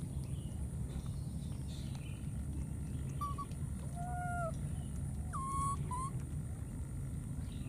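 Baby macaques giving four short, clear coo calls about three to six seconds in, one a little longer and gently arched. A steady low rumble runs underneath.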